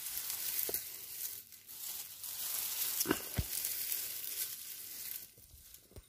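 Dry leaves and plant stalks rustling and crackling, with a few soft knocks; the rustle stops a little after five seconds in.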